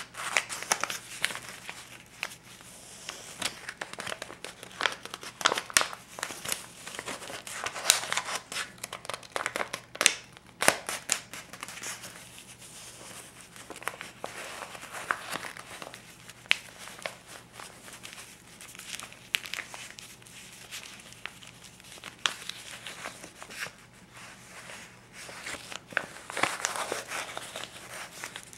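A stack of US dollar bills being handled and flipped through, the paper crinkling and rustling with many crisp snaps. The snapping is busiest in the first ten seconds or so and again near the end, with softer rustling in between.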